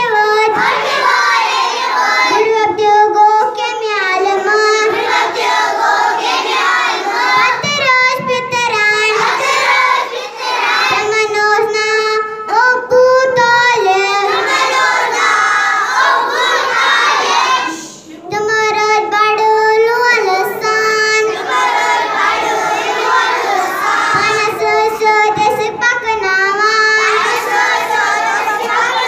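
A young boy's solo voice singing a melodic devotional recitation in praise of the Prophet, with long held notes and a short breath break partway through.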